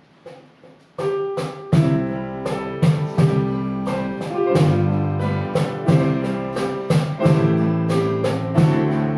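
Instrumental music starts suddenly about a second in, with a quick run of struck notes over held chords and a beat.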